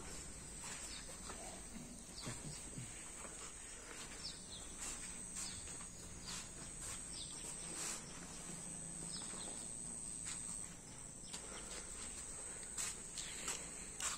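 Outdoor insect chorus: a steady high-pitched drone, with a few short chirps and scattered light clicks.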